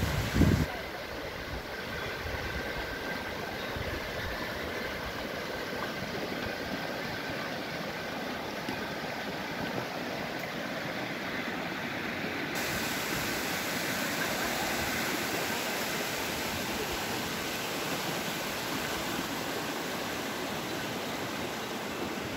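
Fast mountain river rushing over a stony bed: a steady, even rush of water. Right at the start there is a brief low buffet on the microphone.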